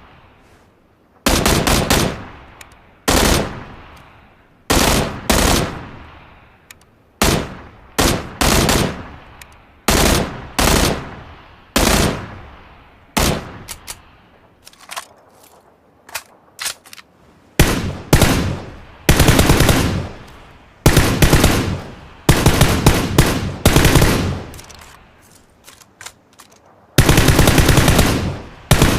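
Gunfire sound effects: short bursts of rapid automatic fire every second or two, each trailing off in an echo, with longer bursts in the second half and a sustained burst near the end.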